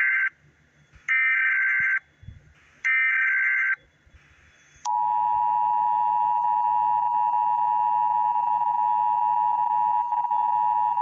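Emergency Alert System tones: the end of one burst of warbling SAME header data tones, then two more bursts, each about a second long with a second's gap. About five seconds in, the steady dual-tone EAS attention signal begins and holds.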